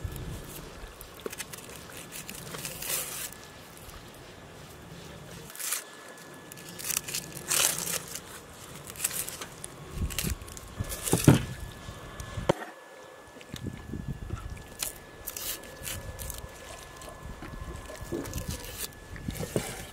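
Onions being peeled and cut with a knife on a wooden board: dry onion skin crackling and crinkling as it is stripped, with irregular knife scrapes and crunchy cuts.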